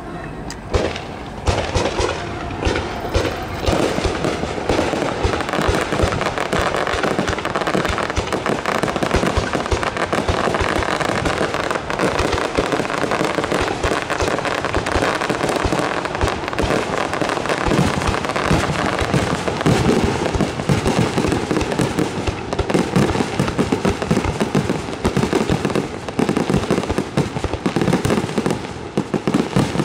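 A fireworks display firing a rapid, unbroken run of aerial shell bursts with crackling and bangs. It starts about a second in and goes on densely to the end.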